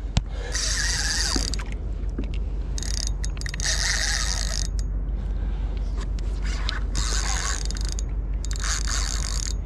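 A spinning reel being cranked in several spells with short pauses, its gears and rotor whirring as the lure is worked back.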